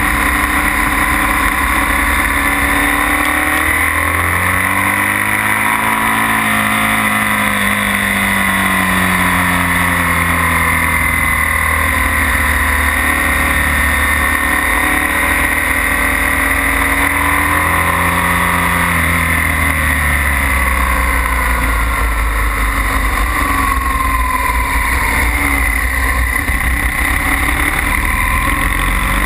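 BMW R1200S's boxer-twin engine running hard on track, heard from the rider's seat, its pitch rising and falling several times as the throttle opens and closes through the corners, over a steady rushing noise.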